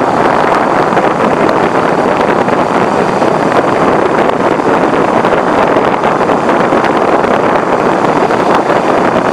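Steady, loud wind rush buffeting the microphone of a hand-held camera on a moving motorcycle, covering any engine sound.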